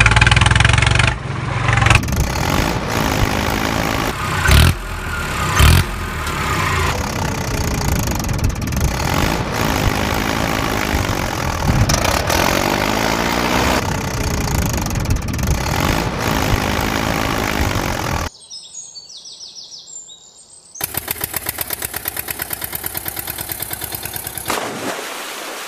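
Tractor engine running steadily with a few thumps and some rises in pitch; it drops away about two thirds of the way through, then comes back as a fast rhythmic chugging that fades near the end.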